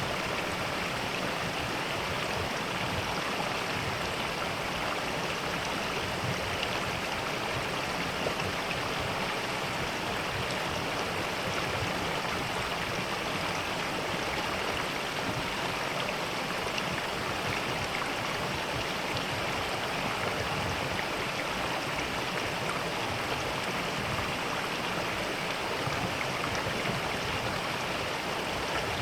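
Mountain valley stream running steadily: an even, unbroken rush of flowing water.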